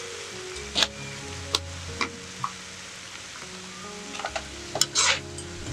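Food sizzling in a hot pan while a utensil stirs it, knocking and scraping against the pan a few times in the first half and in a quick cluster near the end, over soft background music.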